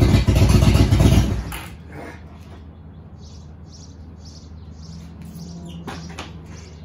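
A motorcycle engine runs loudly, then cuts off abruptly about a second and a half in, during attempts to get the jump-started bike running. After that a faint steady low hum remains, with small birds chirping repeatedly.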